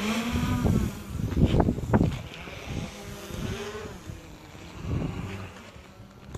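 Quadcopter drone's motors and propellers buzzing steadily in flight, with gusty wind buffeting the microphone.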